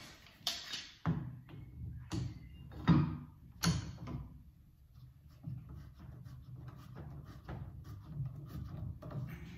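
Steel bar clamps being set and screwed tight onto a wooden template on a cushion rail: about five sharp knocks of clamp jaws against wood and metal in the first four seconds, then quieter ticking and rubbing as the screw handles are turned.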